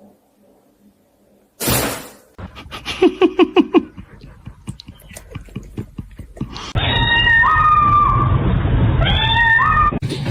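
A cat meowing: a quick run of about six short meows, then longer drawn-out calls that step upward in pitch over loud background noise.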